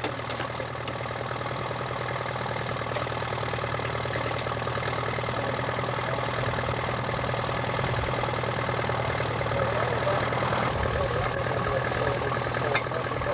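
Vintage farm tractor engine idling steadily, with a brief knock near the end.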